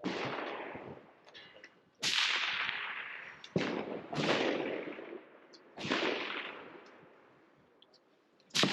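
A string of rifle shots from a competitor firing a precision rifle stage, about five or six sharp cracks spaced roughly one to two seconds apart. Each crack trails off in a long rolling echo.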